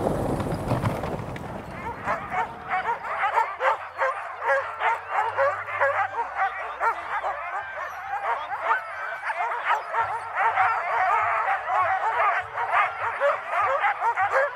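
A team of harnessed sled dogs barking and yelping continuously, many voices overlapping, from about two seconds in. Before that, wind noise on the microphone.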